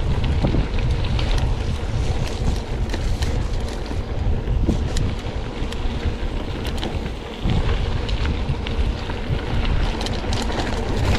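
Wind buffeting the microphone of a camera on a moving mountain bike, a heavy low rumble with scattered clicks and rattles from the ride.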